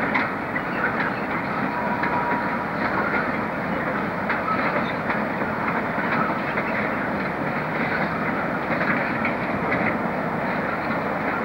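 A train running along the track: a steady rumbling rattle, with faint irregular clicks from the wheels over the rails.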